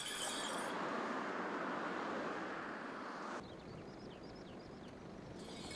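Outdoor ambience: a steady rushing noise that cuts off abruptly about three and a half seconds in, leaving a quieter background with a few faint, short, high chirps.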